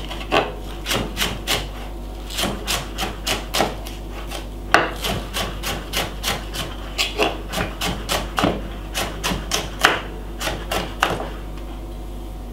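Chef's knife slicing spring onions on a wooden chopping board: quick, even strikes of the blade on the board, about four a second, in runs with short pauses. One sharper, louder knock comes about five seconds in.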